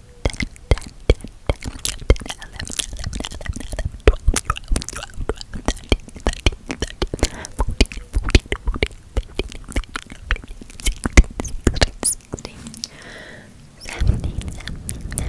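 Wet ASMR mouth sounds close to the microphone: rapid, irregular clicks and smacks, easing into a soft breathy stretch shortly before the end.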